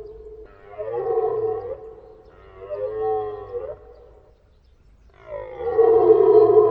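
Red deer stag roaring in the rut: three drawn-out, pitched calls about a second apart, the last one the loudest.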